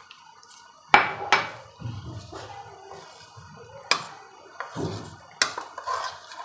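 Metal spoon clinking and scraping against a bowl while stirring custard powder into warm milk. The sharpest clinks come about a second in and again near four and five seconds, with softer scraping between.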